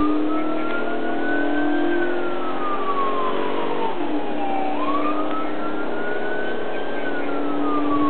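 Police siren on a wail setting, rising and then falling slowly about once every five seconds, over the steady hum of the patrol car's engine and tyres during a high-speed pursuit.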